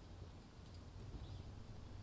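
Faint crackling of a wood campfire: a few soft, scattered clicks over a steady low hum, with a few short, faint high chirps.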